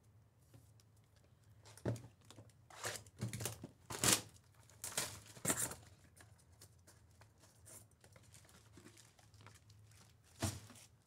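Plastic packaging rustling and tearing as a box of trading cards is opened and a bag of card packs is pulled out. It comes in a run of crinkly bursts from about two seconds in to about six seconds, then quieter handling, and one more burst near the end.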